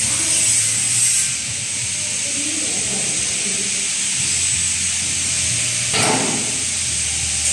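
Automatic 200-litre drum filling machine running: a steady hiss over a low hum, with one short louder rush about six seconds in.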